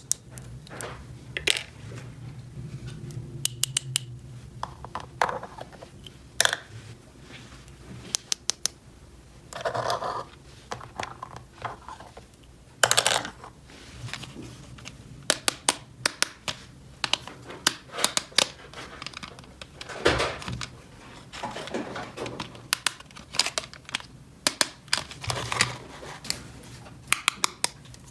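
Small plastic toy pieces being handled: irregular light clicks and taps, with a few short rustling or scraping stretches.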